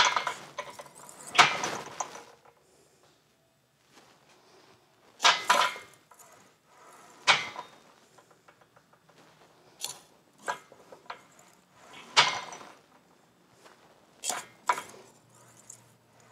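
Small piece of sheet metal clanking and rattling against a round bar on a metal-shaping stand as it is bent by hand to put a slight roll in it. The clanks come in separate bursts every second or two.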